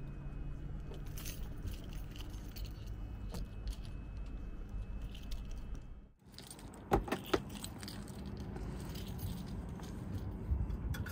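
Light metallic jangling and clicking from cabin door and seat fittings being handled on a parked helicopter, over a steady low rumble. The sound drops out briefly about six seconds in, followed by a few sharp clicks.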